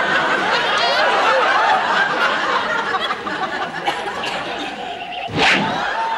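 Audience laughter throughout. About five and a half seconds in comes a single dull thud as a champagne bottle lands in a man's lap.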